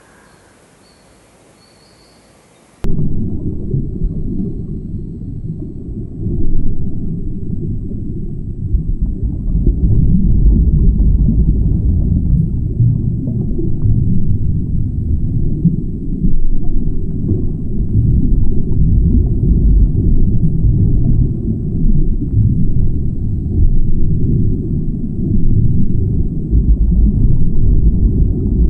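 Underwater ambience: a loud, deep, muffled rumble of moving water that swells and eases unevenly, with nothing in it above a low pitch. It starts abruptly about three seconds in, after a faint hiss.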